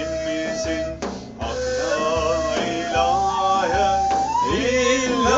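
A ney (end-blown reed flute) plays a melody of held, wavering notes, with a brief break for breath about a second in, over a bendir frame drum beating about twice a second.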